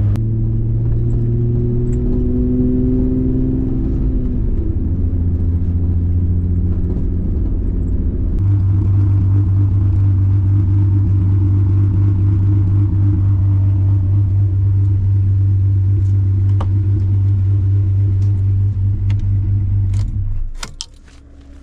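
Volkswagen VR6 engine running, its pitch shifting up and down over the first few seconds and then holding a steady drone, before it stops about twenty seconds in.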